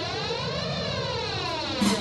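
Background music: a slow swirling sweep that rises and then falls.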